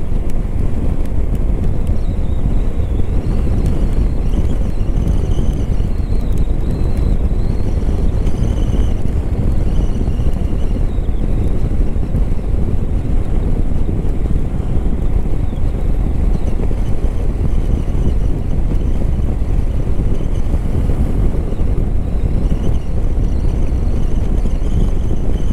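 Steady wind rush buffeting the camera microphone on a motorcycle at highway speed, with the Hero Xpulse 200 4V's single-cylinder engine running underneath.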